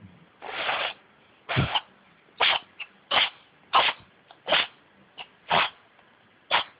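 A cat sneezing over and over: a longer noisy burst first, then about seven sharp sneezes in a row, roughly one a second, with a few faint ones between.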